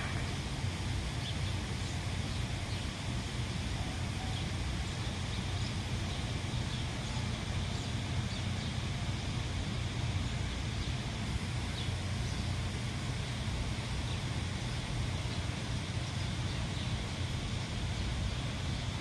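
Steady outdoor background rumble, low and even, with a few faint bird chirps over it.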